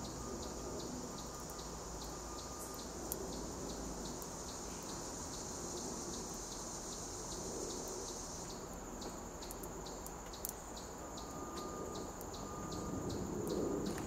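Outdoor insect chorus: a steady high-pitched drone with a regular ticking pulse about two to three times a second; the drone thins about two thirds of the way through.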